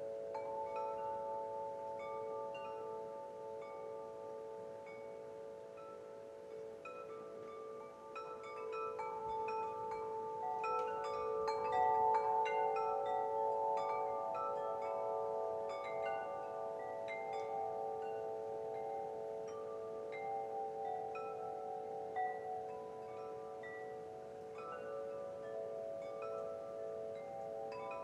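Wind chimes ringing, many struck tones overlapping and hanging on, with a busier, louder run of strikes about ten to thirteen seconds in.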